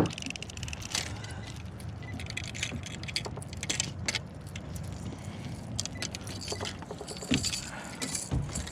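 Irregular light clicks and rattles, like small gear being handled, over a steady low rumble.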